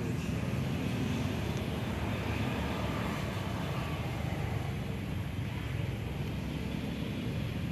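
Steady low rumbling outdoor background noise with a fainter hiss above it, unbroken throughout, with no distinct events.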